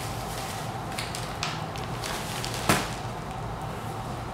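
Dry rub being poured from a plastic bag onto a brisket in a foil pan, then pressed into the meat by hand: a few faint rustles and one sharp tap nearly three seconds in.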